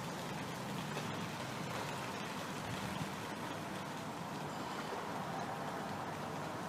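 Steady low hum and hiss of urban outdoor background noise, with no distinct event standing out.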